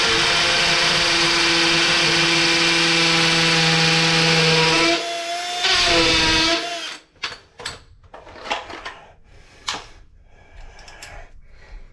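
Electric drill running steadily, briefly slowing and picking up again, then stopping about six and a half seconds in. After it, scattered clicks and knocks of tools and parts being handled.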